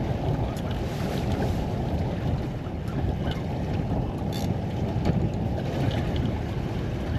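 Steady rushing wind noise on the microphone aboard an offshore fishing boat, with a few faint clicks.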